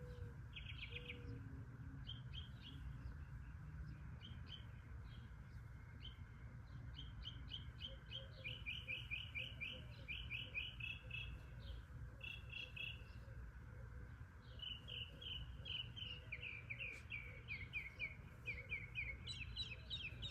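A bird chirping in quick runs of short high notes, several a second. The runs come thicker and faster in the second half.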